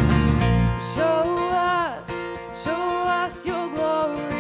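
Live worship band playing: women's voices singing held notes over strummed acoustic guitar and electric bass. The heavy low bass and drum drop away about a second in, leaving the voices and guitar.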